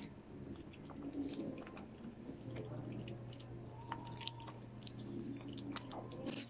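Glue slime, freshly activated, being stirred with a wooden craft stick in a plastic tub: faint wet squishing with scattered small clicks.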